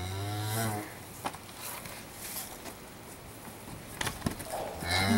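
A cow gives a short, low, closed-mouth moo in the first second, rising and falling slightly in pitch. After that only faint rustling and a few light clicks.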